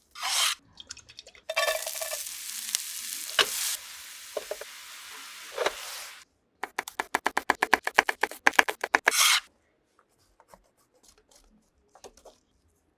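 Cooking sounds: a steady sizzle for several seconds, then a fast run of rhythmic utensil strokes, about eight or nine a second, for roughly three seconds, then only faint small clicks.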